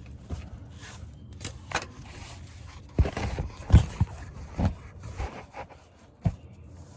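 Scattered knocks, clunks and scrapes from hands handling tools and parts. A cluster of louder knocks comes about three to four seconds in.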